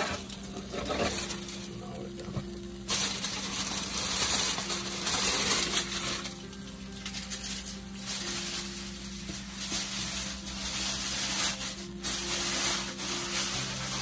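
Hot cooking juices sizzling and crackling in a glass baking dish around a whole salmon fresh from the oven. The sizzle starts sharply about three seconds in, then fades and comes back near the end, over a steady low hum.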